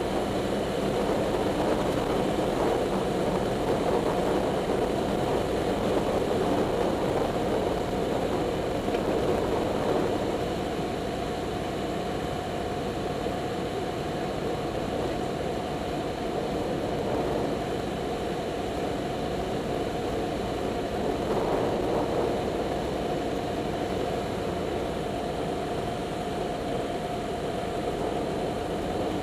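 Light single-engine propeller airplane's engine and propeller droning steadily in flight, heard from on board. The drone drops a little about ten seconds in and then holds even, with a steady tone running through it.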